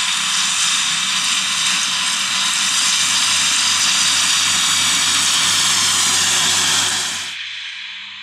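Fendt 826 Vario tractor working with a Kuhn triple disc mower cutting grass: a loud, steady rush with a high multi-toned whine. It drops off abruptly near the end to a much quieter background.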